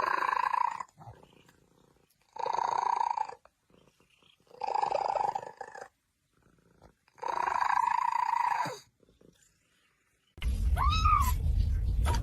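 Domestic cat giving four long, drawn-out meows at a steady pitch with short pauses between them. About ten seconds in, a steady low rumble starts with one short rising-and-falling call in it.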